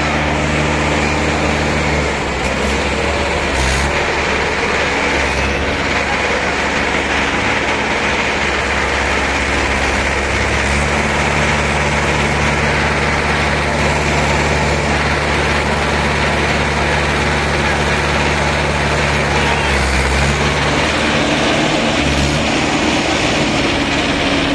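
Mahindra DI tractor's diesel engine running hard at high revs, its pitch shifting a few times as the throttle changes, with a second tractor engine running behind it.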